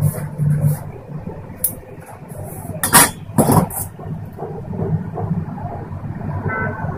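A loud low hum fades out in the first second. About three seconds in, two sharp clicks come half a second apart as a gas stove burner is lit under a small steel pan of oil and whole dried red chillies, and a low rush of burning gas follows.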